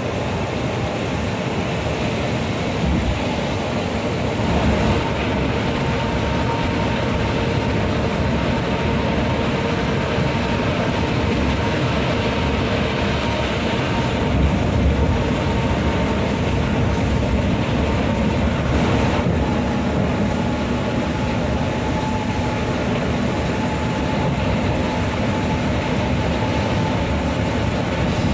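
Bus cruising at highway speed, heard from inside the cabin: steady engine and tyre rumble with a faint constant whine.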